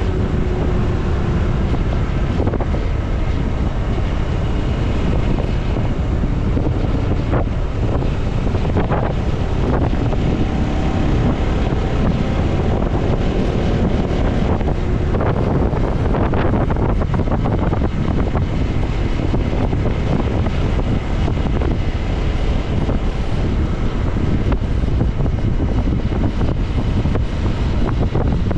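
Wind rushing over a GoPro's microphone at road speed, over the steady running of a motorcycle engine. Faint pitched hums come and go in the noise.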